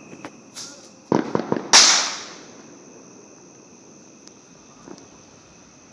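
Fireworks going off: a few scattered pops, then a quick run of sharp cracks about a second in, ending in one loud bang with a hissing tail that fades over about half a second. A couple of faint pops follow later.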